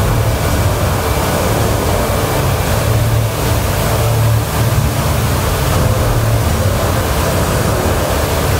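Large indoor fountain with water pouring in a curtain into its basin: a steady rushing of water with a low rumble underneath that swells and eases.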